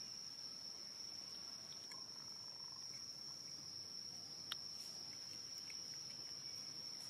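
Insects trilling in one steady high-pitched drone, with a single sharp click about four and a half seconds in.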